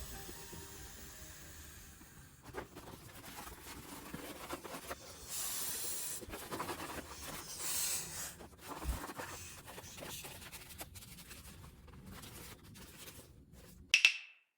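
Irregular rubbing and scratching handling noises with short clicks and a few brief hisses. A sharp loud sound comes near the end, then the sound cuts to silence.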